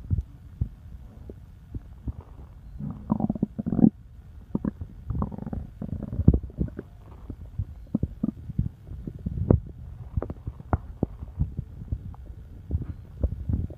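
A person's stomach rumbling and gurgling: irregular low gurgles broken by short pops, with a longer gurgle about three seconds in.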